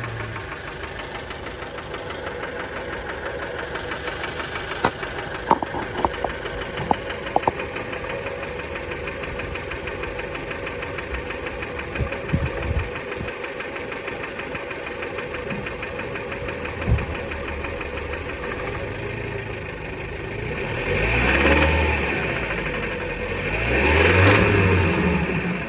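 Fiat Bravo 1.4 T-Jet turbocharged four-cylinder petrol engine idling with a steady knocking rattle, the noise that persists on this 215,000 km engine after maintenance. A few sharp clicks come about five to seven seconds in, and the engine is revved briefly twice near the end, rising and falling in pitch.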